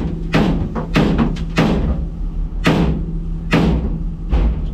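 A series of sharp knocks at an uneven pace, about a dozen in all, over a steady low engine hum.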